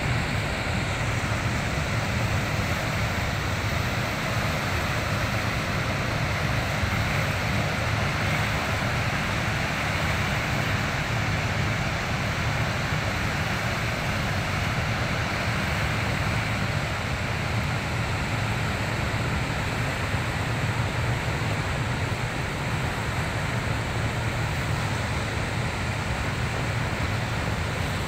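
Floodwater rushing steadily through a dam's spillway gates, opened about two feet, and churning in the turbulent tailwater below: a continuous, even rushing with a deep rumble beneath it.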